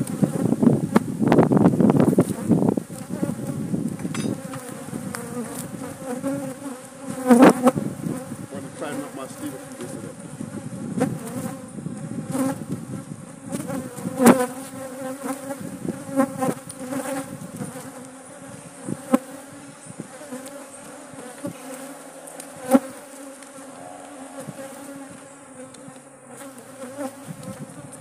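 Honey bees buzzing in numbers around an opened hive, a steady hum of several tones, from a defensive colony that has been disturbed. A few sharp knocks break through it now and then.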